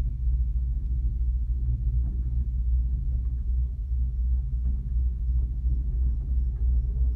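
Steady low rumble inside a moving gondola cabin as it rides up its cable.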